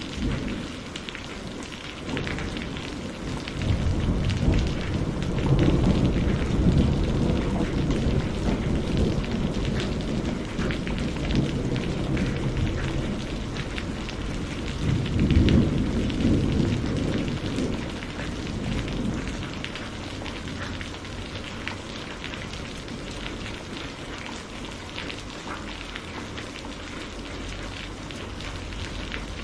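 Steady rain falling on hard surfaces, a constant hiss with a patter of individual drops. Low rolling thunder swells twice, a few seconds in and again about halfway, then fades.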